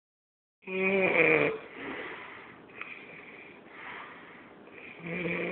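A person snoring loudly. A rough, pitched snore comes on one breath about half a second in and again near the end, with softer breathy snores between.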